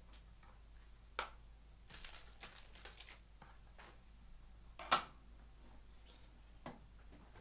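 Handling noise: three sharp clicks, the loudest about five seconds in, and a brief rustle with small ticks around two to three seconds in, as trading cards, plastic card holders and packaging are handled on a desk.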